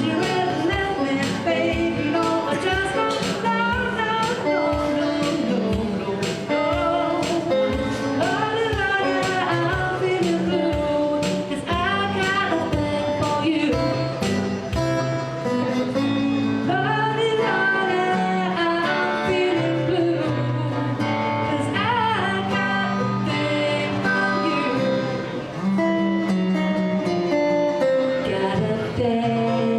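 A woman singing while playing guitar, strumming chords under her voice.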